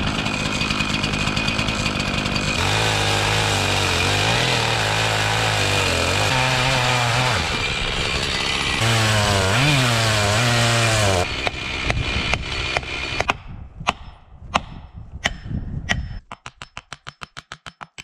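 Chainsaw running and cutting into a tree trunk to fell it, its engine pitch rising and falling with the load. It stops about 11 seconds in, followed by a few scattered knocks and then a fast, even run of clicks near the end.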